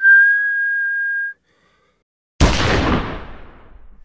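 A steady high whistle held for over a second, then after a second of silence a single loud gunshot that rings and fades over about a second and a half.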